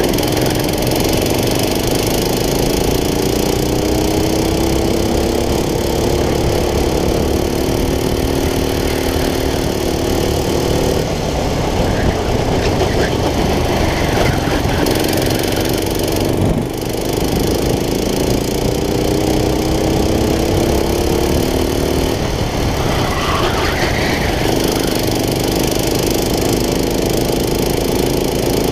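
Racing kart's small engine running hard at high revs down the straights, its pitch gliding slowly, cutting back twice as the throttle is lifted for corners and then picking up again. Steady wind noise rushes over it throughout.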